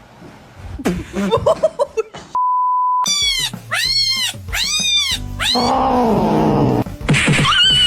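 A cat meowing loudly over and over, four arched meows in quick succession, then a lower falling yowl and a high wavering cry near the end. A short steady beep cuts in just before the run of meows.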